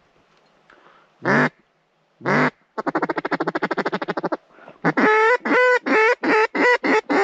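Duck call blown close by at calling ducks: two drawn-out quacks, then a fast rolling chatter like a feed chuckle, then a cadence of about eight loud quacks.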